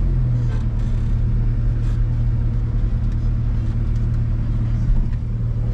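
Steady low drone of a car's engine and road noise, heard from inside the cabin.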